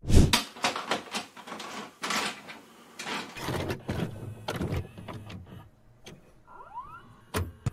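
VHS video cassette recorder's tape mechanism loading and starting to play: a loud knock, then a run of clicks and clunks, a short rising motor whine about two-thirds through, and a sharp click near the end.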